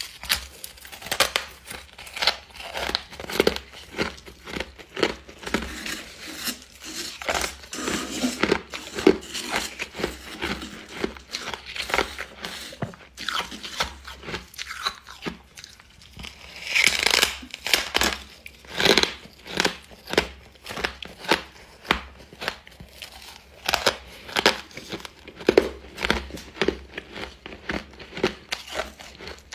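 Refrozen freezer frost being bitten and chewed: dense, irregular crunching, loudest about halfway through.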